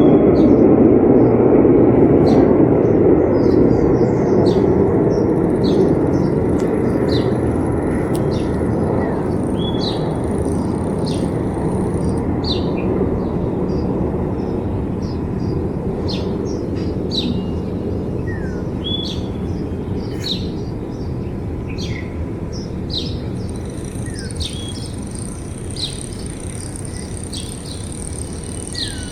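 Small birds chirping and whistling repeatedly over a steady rushing noise that slowly fades away; a thin high whine joins in during the second half.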